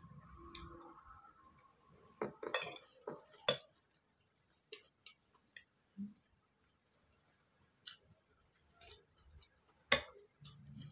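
Cutlery clinking against a plate or dish in a few scattered, sharp clicks, a cluster about two to three seconds in and one loud clink near the end, with quiet gaps between.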